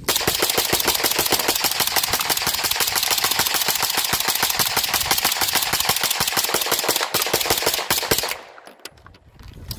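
A KUSA KP9 9mm carbine with a STizon helical-magazine kit firing a long, fast, even string of shots, emptying the magazine. The string stops abruptly about eight seconds in, followed by a few scattered sharp sounds.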